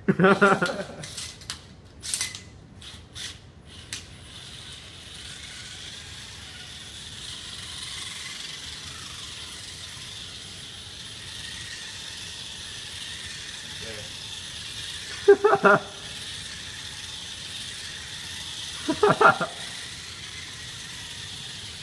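Beetleweight combat robot's brushless drive motors whining steadily as it drives and spins on a hard floor, after a run of sharp clicks and knocks in the first few seconds.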